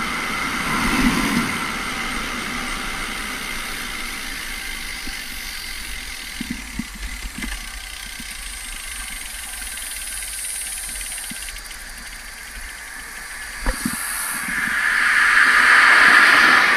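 Steady rushing wind and road noise on a moving rider's camera microphone, with a few light knocks. Near the end a car approaches and its sound swells loudly.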